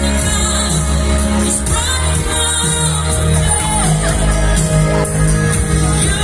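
Singing over amplified music, with a strong steady bass line.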